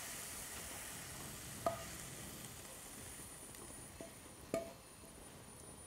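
Cooked mushroom curry scraped out of a hot frying pan into a ceramic bowl with a wooden spoon: a faint sizzle that slowly fades, with two light clinks of the cookware at about two and four and a half seconds.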